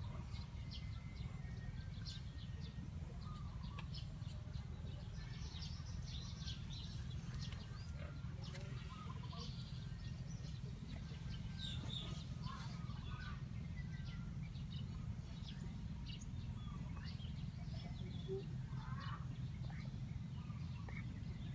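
A chorus of frogs calling after rain: a steady low croaking drone, with many short higher chirps scattered through it.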